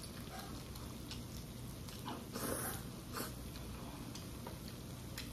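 Faint sounds of a person eating noodles: soft chewing and mouth noises, a short slurp-like noise about two and a half seconds in, and a few light clicks.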